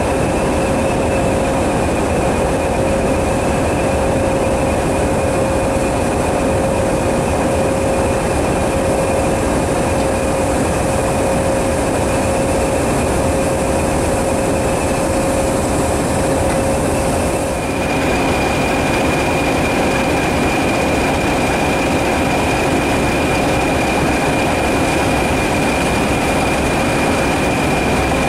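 Southern Railway West Country class steam locomotive 34027 moving slowly tender-first with a steady hiss of steam, over a steady mechanical drone. About 18 s in it cuts to the steady drone of diesel engines from a Class 20 and a Class 52 'Western' locomotive standing with a train.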